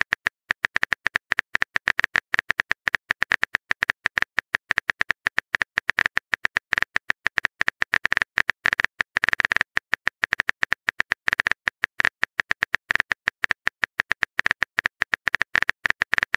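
Rapid, unevenly spaced typing clicks of a phone keyboard sound effect as a message is typed out, several keystrokes a second.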